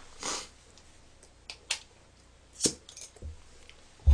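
Light handling noises at a table with a bottle and drinking glass: a short rustle near the start, a few sharp light clicks and clinks, then a loud knock at the very end.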